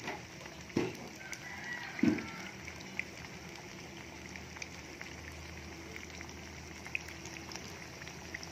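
Battered banana slices deep-frying in hot oil: a steady sizzle with scattered crackling pops. Two dull knocks stand out about one and two seconds in.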